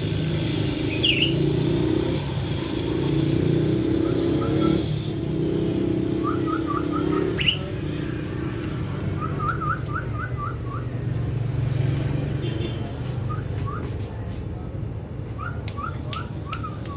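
Young caged greater racket-tailed drongo calling in runs of two to seven short, quick rising notes, with two single sharper, higher chirps, one about a second in and one near the middle. A low background rumble underlies the first half and fades after that.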